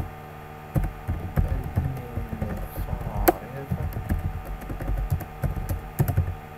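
Typing on a computer keyboard in irregular keystrokes, with one sharper key strike a little past halfway.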